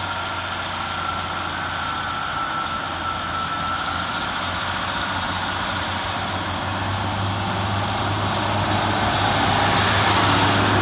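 Class 150 Sprinter diesel multiple unit, with its Cummins diesel engines, arriving into the platform: a steady low engine hum under rail and running noise that grows louder as the train draws alongside. A thin squeal sounds for a few seconds near the start.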